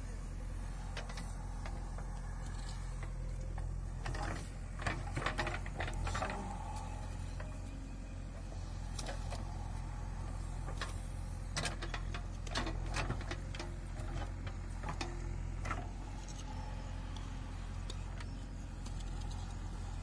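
JCB 3DX backhoe loader's diesel engine running steadily as the rear bucket digs soil, with scattered knocks and scrapes from the digging, clustered around five seconds in and again around twelve seconds in.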